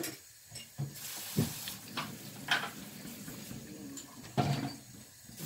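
Shredded beef in tomato sauce sizzling gently in a nonstick frying pan, with a silicone spatula stirring and scraping through it in several short strokes.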